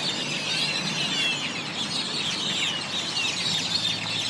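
A large flock of birds calling all at once, a dense continuous chorus of overlapping high chirps and squeaky notes.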